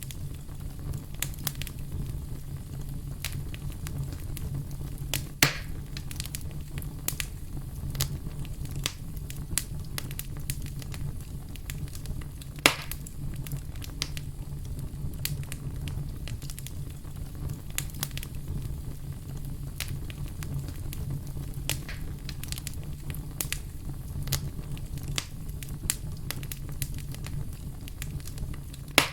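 Fireplace fire crackling: a steady low rumble with frequent sharp crackles, and two louder pops, about five seconds in and about twelve and a half seconds in.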